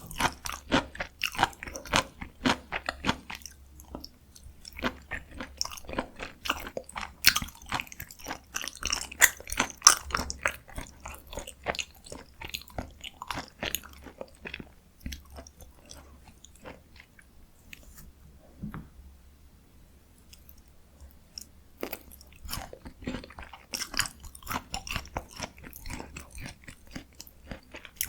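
Close-miked chewing of spicy stir-fried chicken: wet, sticky mouth clicks and smacks in quick irregular runs, easing off for several seconds midway before picking up again.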